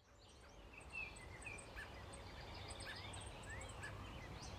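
Several birds chirping and calling with short notes and quick upward glides, fading in over a low steady rumble.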